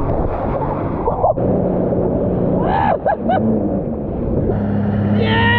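Water rushing and splashing in heavy spray around a Sea-Doo jet ski. The jet ski's engine hums steadily from about a second and a half in. Brief shouts come through a few times.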